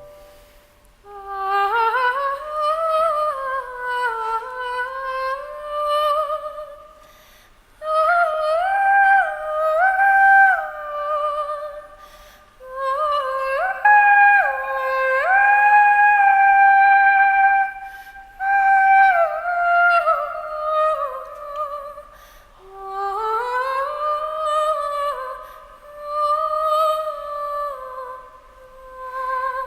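A high solo female voice singing a wordless melody in five phrases of a few seconds each, with sliding notes and quick trill-like alternations between two pitches.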